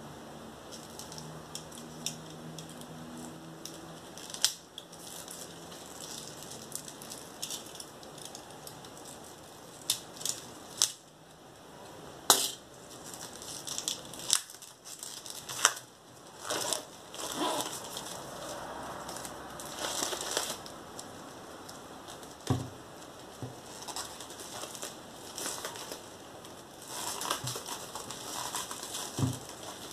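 Plastic shrink-wrap being picked at, torn and peeled off a hardcover book: irregular crinkling and crackling with scattered sharp clicks and snaps.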